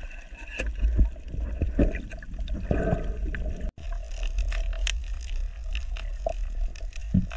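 Underwater ambience picked up by a camera in its housing: a steady low rumble of water movement with scattered clicks and crackles. The sound cuts out for an instant about halfway through.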